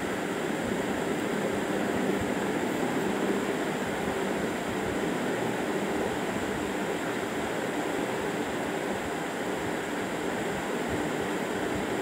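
Steady rushing background noise with a faint, even hum, unchanging throughout and with no distinct tool knocks standing out.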